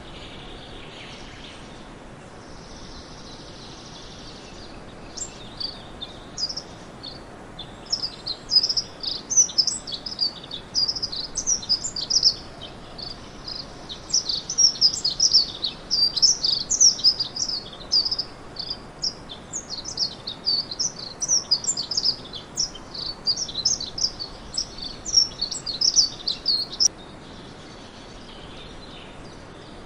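A songbird singing a long, fast run of high chirps and twitters that starts about five seconds in and cuts off suddenly near the end, over a steady background hiss.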